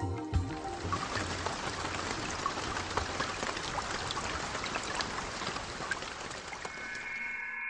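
Steady rain falling, a dense hiss with scattered drop hits, as music fades out in the first second. Near the end a high ringing tone sets in.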